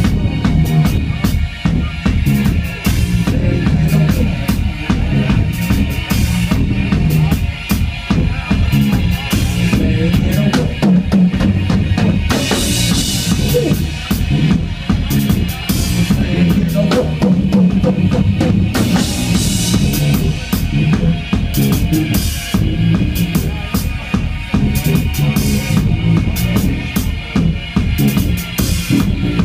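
Live hip-hop band playing an instrumental groove, with drum kit and electric bass to the fore and no rapping over it.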